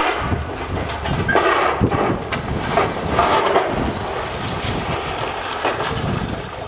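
Demolition of a masonry building: irregular crunching and clattering of breaking material over a low machine rumble, with wind on the microphone.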